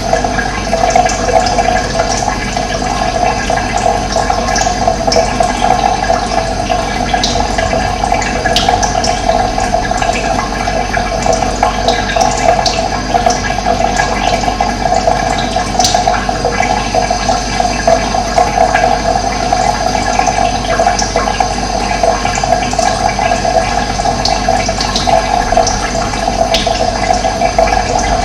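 Running water, a steady rushing flow, with short high bird chirps scattered through it.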